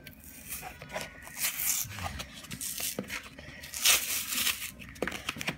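Cardboard backing of a blister pack being torn open by hand in a series of irregular rips, the loudest nearly four seconds in.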